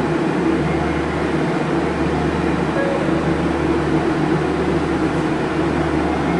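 Steady low hum with an even hiss, the running sound of a stopped monorail car's air conditioning and electrical equipment.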